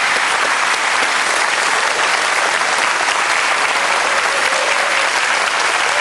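Audience applauding steadily, a dense even clapping from many hands.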